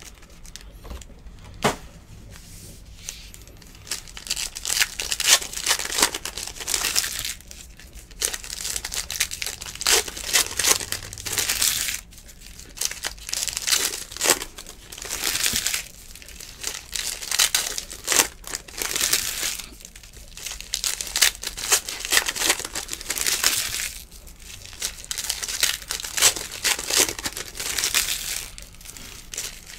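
Foil trading-card pack wrappers crinkling and tearing as packs are ripped open and handled, in bursts every second or two with short quieter gaps between.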